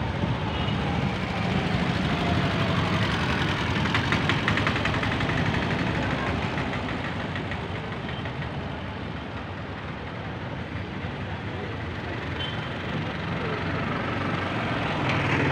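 Road traffic: engines of trucks, auto-rickshaws and scooters running and passing close by, a steady low rumble.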